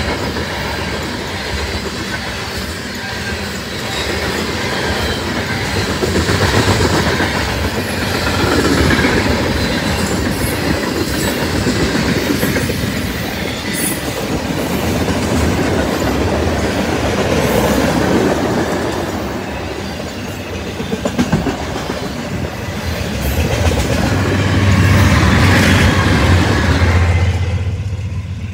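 Loaded tank cars of a freight train roll past close by, with a heavy rolling rumble and wheels clacking over rail joints. Near the end a BNSF diesel locomotive, the rear distributed-power unit, passes with a loud, steady engine drone that is the loudest part. It then drops away quickly.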